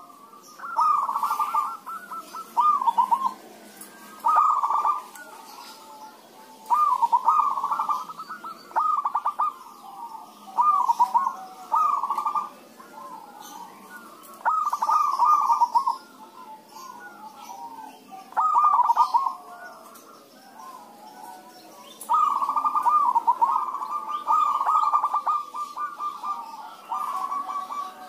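Several zebra doves cooing and answering one another. Bursts of rapid, stuttering coos come every second or two, and for several seconds near the end they run together almost without a break.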